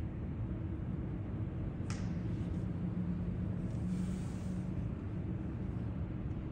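Low, steady rumble of airliner jet engines on the airport apron, with a single sharp click about two seconds in.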